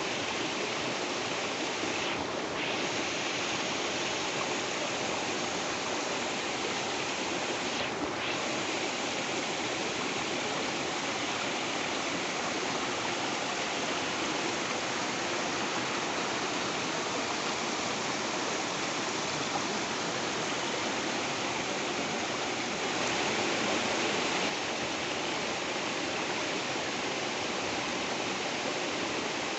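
Waterfall: water falling and rushing steadily, swelling slightly for a moment about three-quarters of the way through.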